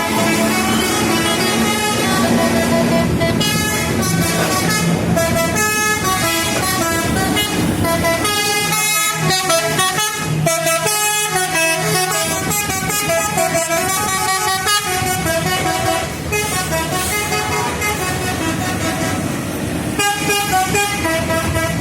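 Indonesian bus telolet horns, multi-tone air horns sounding a melody: notes step quickly from one pitch to another, several tones at once, with no pause throughout.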